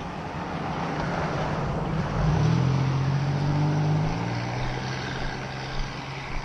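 An SUV driving past on a road. Its tyre noise and engine hum swell as it approaches, are loudest about two to four seconds in as it goes by, and its tone drops and fades as it moves away.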